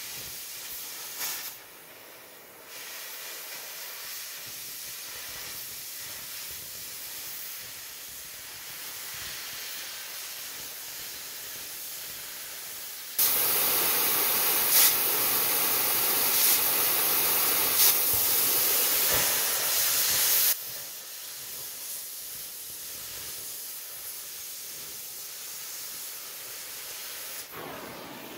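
Oxy-fuel cutting torch hissing steadily as it cuts through steel channel. About thirteen seconds in the hiss jumps much louder for about seven seconds, then drops back to its earlier level.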